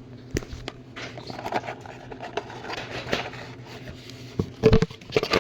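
Handling noises of a plastic socket case and its packaging being pulled apart: scattered clicks, scrapes and rustles, with a few louder knocks near the end.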